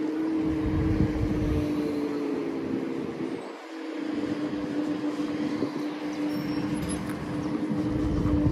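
Lime rental electric scooter riding along: a steady electric-motor whine over rumbling wind and road noise. The rumble drops away briefly about three and a half seconds in and swells again near the end.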